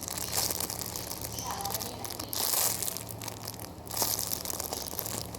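Plastic packaging crinkling and rustling in irregular bursts as a foam ice cream squishy toy is squeezed and handled.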